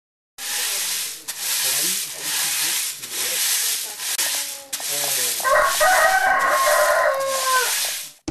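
A rooster crows once, a long call starting about five seconds in and dropping in pitch at its end, after a few short clucking calls. Under it runs a hiss that swells and fades roughly once a second.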